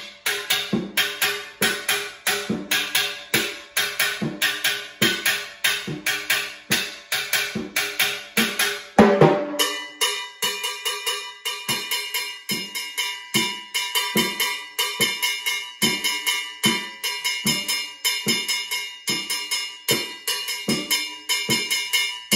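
Timbales played in a salsa rhythm: for about the first nine seconds the cascara pattern is played on the metal shells, a short loud break comes at about nine seconds, and from there the mambo bell pattern rings out on the cowbell over a steady low pulse on the drums. It is the move from cascara to mambo bell, the bell pattern used under the chorus in Cuban son and salsa.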